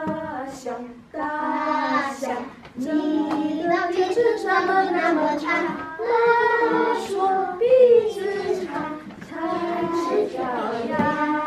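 A group singing a song together, children's voices prominent, in phrases of long held notes with short breaks between them.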